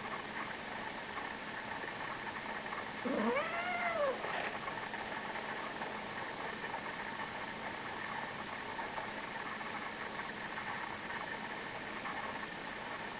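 A cat giving one short squeaky meow that rises and then falls in pitch, about three seconds in, over a steady low hum.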